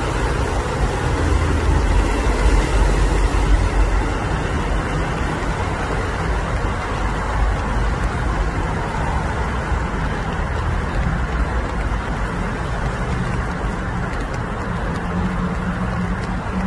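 Steady low rumble of road traffic, swelling a little a couple of seconds in.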